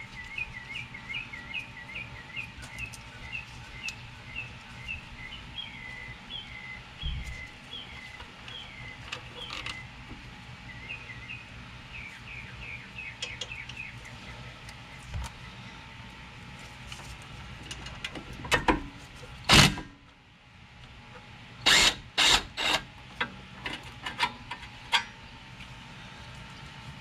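A bird chirping over and over, two or three short chirps a second, through the first half. In the second half come several sharp knocks and clanks of hand tools on the brake parts, the loudest about two-thirds through and a quick cluster soon after.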